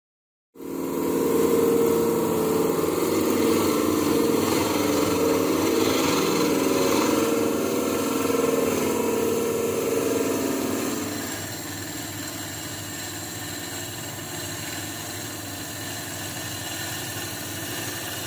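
Wood lathe running while a hand-held turning tool cuts a spinning wooden blank. The sound starts suddenly about half a second in, is loudest for roughly the first ten seconds, then drops to a lighter, steady cutting sound.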